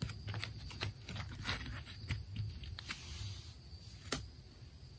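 Faint handling of cards on a satin cloth: a run of light clicks and rustles as the cards are gathered up, then one sharper tap about four seconds in, over a low hum.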